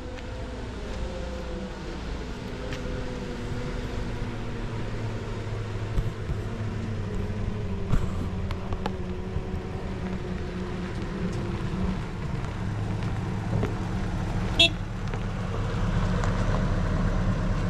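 An engine running steadily, its pitch drifting slowly, with a single sharp click near the end.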